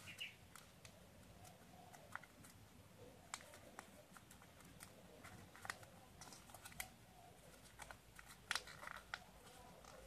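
Faint crinkling and clicking of paper being folded and creased by hand, in scattered small ticks that come a little thicker near the end.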